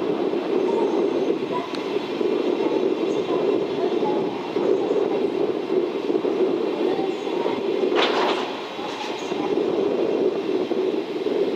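Chiki 5500 flat wagons loaded with long rails rolling past on the track, a steady noise of wheels on rail. About eight seconds in there is a brief clank.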